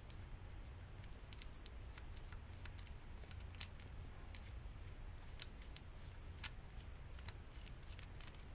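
Scattered faint, irregular small clicks of a screwdriver and small metal pistol parts being handled as the grip screw of an airsoft pistol is worked loose, over a low steady hum.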